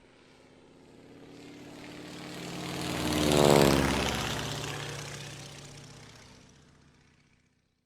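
A car driving past: its engine note grows from faint to loud, peaks about three and a half seconds in, drops in pitch as it goes by, then fades away.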